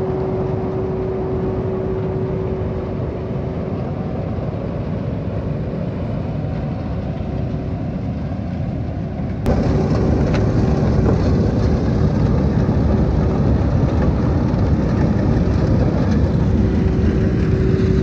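John Deere 4240 tractor pulling a John Deere 300 corn picker through standing corn, its diesel engine and the picker's machinery running steadily, with a steady whine over them for much of the time. The sound gets louder and fuller about halfway through.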